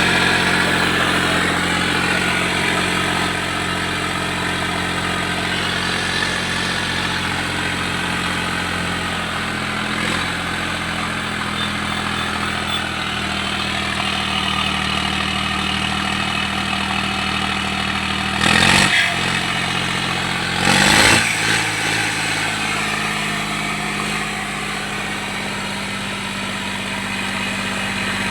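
Heavy diesel engine running at a steady idle. Its pitch shifts a few times, and about two-thirds of the way in it gives two brief louder bursts a couple of seconds apart.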